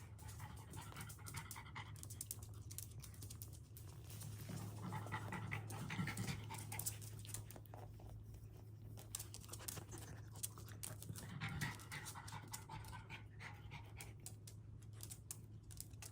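Mixed-breed puppy panting softly in quick breaths, in spells every few seconds, over a faint steady low hum.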